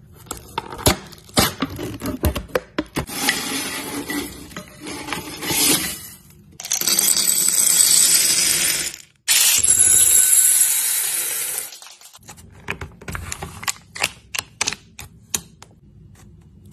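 A string of snack-handling sounds: crackling and clicking as the foil seal of a Pringles can is peeled, then M&M candies poured into a glass bowl, making a loud steady rattle in two stretches around the middle. Near the end come a run of light separate clicks and taps.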